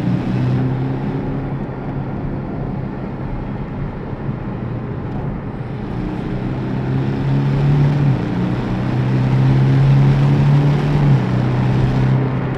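Porsche 718 Cayman S's 2.5-litre turbocharged flat-four engine pulling on the road. Its note steps up about eight seconds in, then drops sharply about eleven seconds in.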